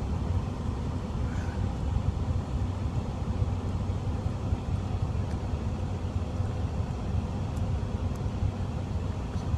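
Semi truck's diesel engine idling with a steady low rumble, heard from inside the cab.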